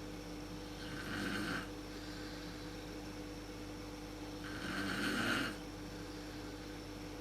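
A woman snoring in her sleep: two snores about three and a half seconds apart, the second longer and louder, over a steady low hum.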